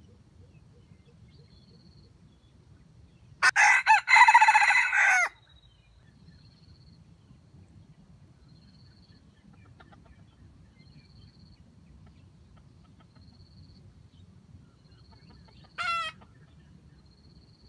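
Red junglefowl rooster crowing once, loud, for about two seconds a few seconds in, then one short falling call near the end.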